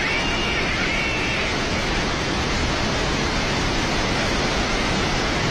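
Flash-flooded river torrent rushing steadily: a loud, even sound of churning floodwater.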